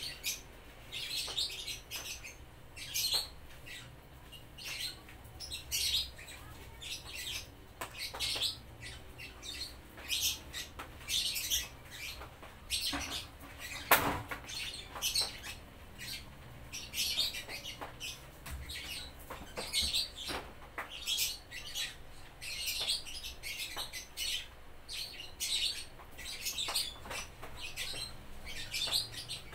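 Small birds chirping over and over in short, high calls, with a single sharp click about halfway through.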